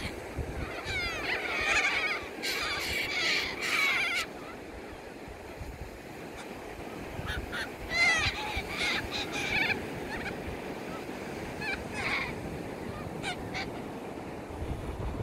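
A flock of cockatoos screeching: harsh overlapping calls in bunches, loudest in the first few seconds and again about eight seconds in, with scattered single screeches later. A steady wash of surf runs underneath.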